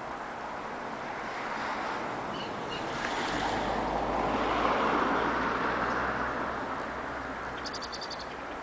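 Rushing whoosh of a huge flock of starlings' wings in murmuration, swelling to a peak midway and then fading, like surf. A few faint chirps and a short run of clicks come through near the end.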